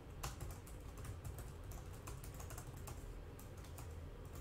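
Rapid, irregular clicking of typing on a computer keyboard, over a steady low hum.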